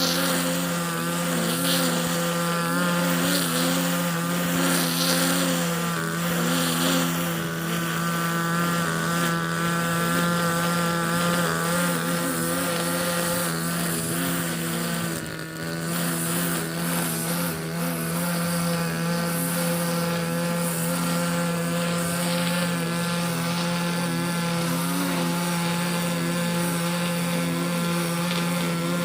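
Small petrol engine of a grass-cutting machine running steadily at high speed, with a brief dip about halfway through.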